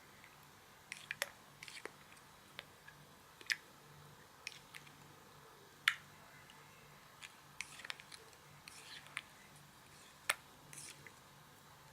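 Slime being played with by hand, giving irregular sharp pops and clicks, some single and some in quick clusters.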